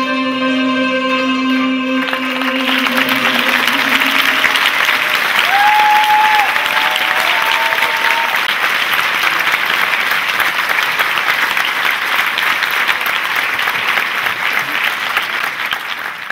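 A female singer and plucked-string accompaniment hold the song's last note and chord for about two seconds, then the audience breaks into applause that carries on, with a short cheer in the middle, and it fades away at the end.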